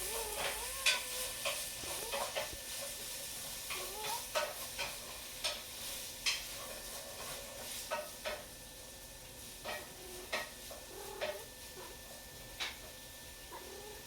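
Irregular light clicks and clinks, like utensils on dishes, over a faint hiss, with a cat's low wavering growl now and then.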